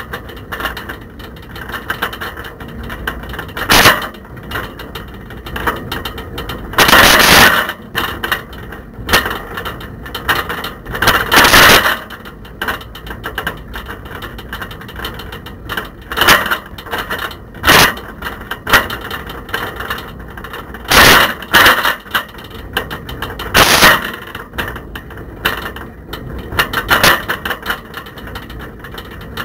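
A camera rattling and knocking about in a bicycle's front basket as the bike rides along the road, with several loud clattering jolts where the basket is shaken hardest.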